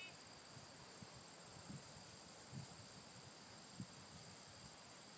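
Field insects trilling steadily, a high, finely pulsing buzz typical of crickets, with a few faint low thumps.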